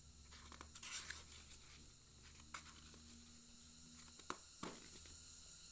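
Quiet room with a faint steady low hum and a few soft clicks and rustles, typical of paper sticker sheets being handled.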